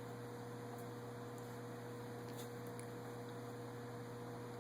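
Quiet room tone: a steady low electrical hum with a thin constant tone above it, and a few faint ticks.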